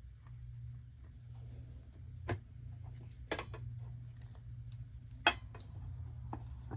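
Sharp plastic clicks and taps of the parts being handled as the replacement screen is pressed into the Uconnect radio housing: a single click, a quick cluster about halfway through, and one louder snap about five seconds in, over a steady low hum.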